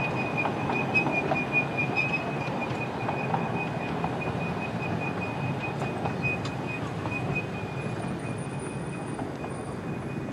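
Miniature railway passenger coaches rolling past: a steady rumble of wheels on the track with a thin, steady high wheel squeal and occasional light clicks, fading slowly as the train draws away.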